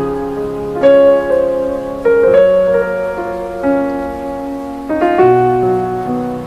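Background music: a slow piano melody, a new note or chord about every second, each ringing on until the next.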